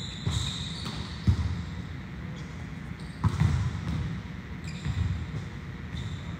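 Volleyballs being struck and bouncing on a gym floor: a series of thuds a second or two apart, the sharpest about a second in, with a few short high squeaks.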